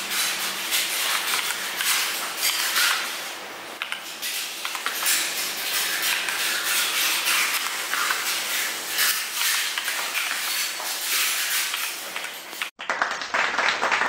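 Mechanical keyboard keys clacking rapidly and continuously, a dense run of short plastic clicks. The sound cuts off abruptly near the end and a different noisy sound takes over.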